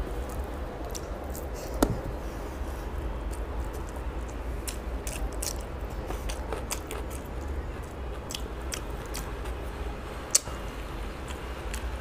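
Close-up chewing and wet mouth clicks of a man eating rice and fish curry by hand, over a low steady hum. Two sharp, louder clicks stand out, about two seconds in and near the end.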